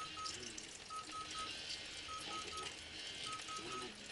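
An electronic beeper sounds short, same-pitched beeps in groups of three, one group about every second, over a steady hiss.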